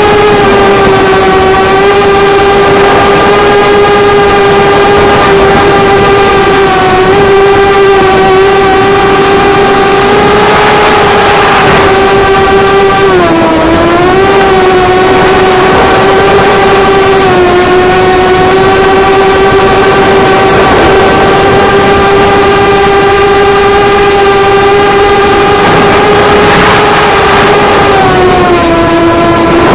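QAV250 quadcopter's four Cobra 2204 2300kv brushless motors spinning 5045 bullnose propellers, a steady, loud whine in flight. The pitch dips briefly about 13 seconds in and again near the end.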